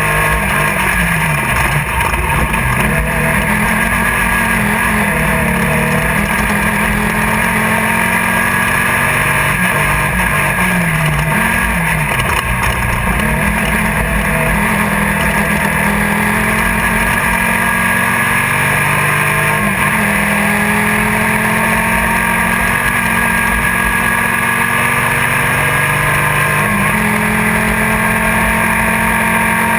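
Off-road race car's engine running hard, heard from inside the car, its pitch rising and falling with throttle over constant driving noise.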